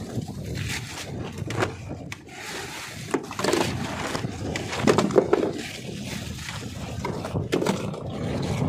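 Irregular knocks and scrapes of a tin can and small fish being handled in a plastic basin aboard a wooden fishing boat, over a steady low rumble.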